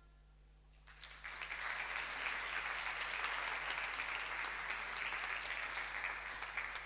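A brief hush, then an audience applauding from about a second in, a dense steady clapping.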